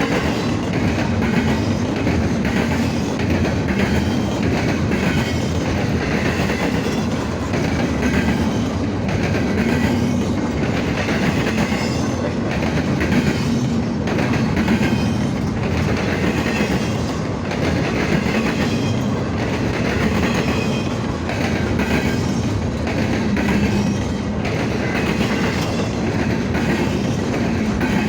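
Norfolk Southern intermodal freight train rolling past, its wheels clattering steadily over the rail joints in an even repeating rhythm.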